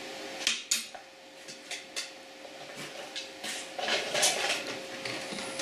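Small metal carburetor parts clinking and clattering on a workbench as the lawn tractor's carburetor is handled and taken apart. There are several sharp knocks, with a busier clatter about four seconds in, over a faint steady hum.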